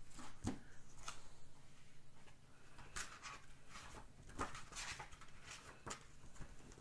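A paperback book being handled: scattered paper rustles and a few soft knocks, about six in all.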